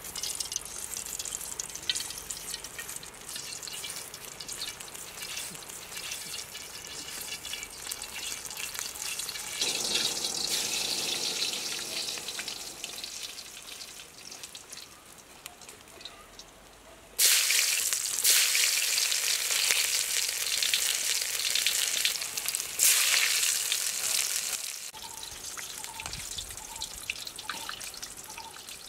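Crackling and sizzling from a wood cooking fire and the oil heating in the cast-iron wok above it. About 17 seconds in, a much louder sizzling hiss sets in suddenly and runs for some eight seconds before dying back down.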